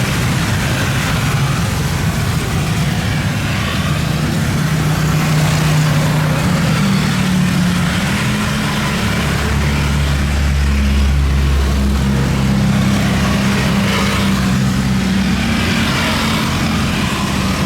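Steady, loud engine noise with a low hum that shifts up and down in pitch, the low rumble strongest around the middle.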